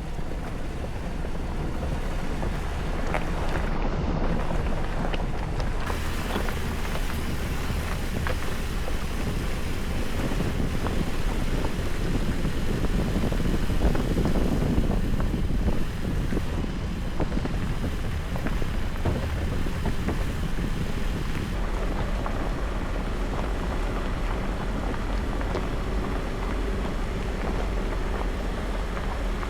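Jeep Gladiator driving a rocky dirt trail: a steady engine and tyre rumble with many small knocks and crunches from stones, and wind on the microphone.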